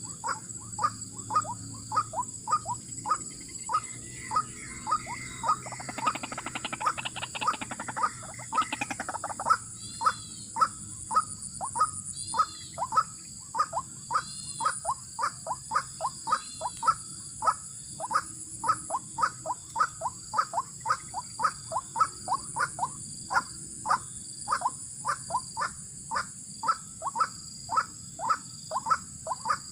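White-breasted waterhen (ruak-ruak) calling over and over, a short, sharp, falling note about twice a second. A denser rattling run comes a few seconds in. A steady high insect hum goes on underneath.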